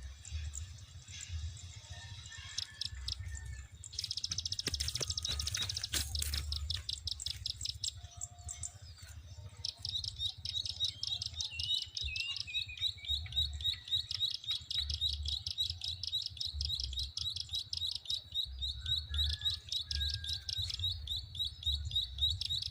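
Prinia (prenjak) giving fast, rapidly repeated clicking calls, a short run about four seconds in and a long unbroken run from about ten seconds on.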